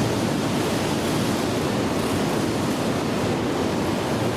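Steady, even rushing noise of a railway station platform with a train standing at it, with no distinct events.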